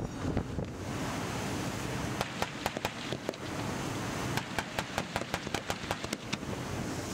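.50-caliber M2HB heavy machine gun on a CROWS II remote weapon station firing bursts of sharp, evenly spaced shots: a short burst about two and a half seconds in and a longer one from about four and a half seconds to near the end. Steady wind noise on the microphone and sea noise run underneath.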